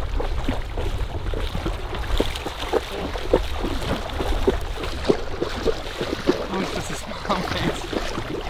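Water sloshing and splashing from wading through shallow marsh water, in quick, uneven repeated strokes, over a low rumble of wind on the microphone.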